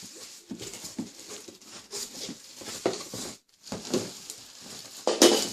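A cardboard box and its packaging being handled as the vacuum cleaner is pulled out: irregular rustling, scraping and light knocks, with the loudest scrape near the end.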